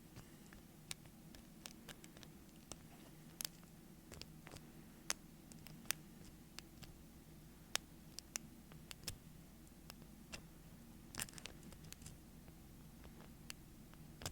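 Lock pick working the pin tumblers of a door knob lock cylinder: irregular small sharp clicks and light scratches as the pick lifts and scrapes across the pins under tension. A faint steady low hum runs underneath.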